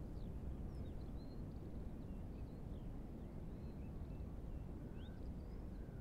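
Strong wind buffeting and rumbling on the microphone, with quick, high bird chirps scattered throughout from small birds singing.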